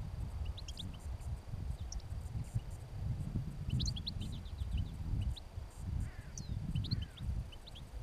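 Small finches chirping: many short, high call notes scattered through, thickest a few seconds in, over a low gusty rumble of wind on the microphone.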